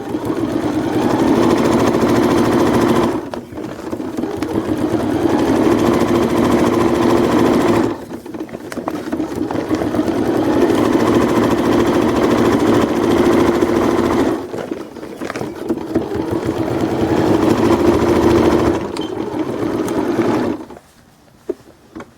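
Home sewing machine stitching a second, reinforcing seam line along the binding of an inflatable slide. It runs in spurts of several seconds with brief pauses between them, and stops shortly before the end.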